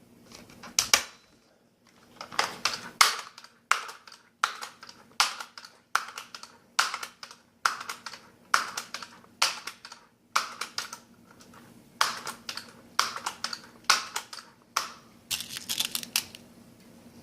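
Daisy PowerLine 880 air rifle being pump-charged: a long run of short, sharp mechanical strokes, a little under one a second, with a brief pause partway through, as the forearm lever is worked to build air pressure for the next shot.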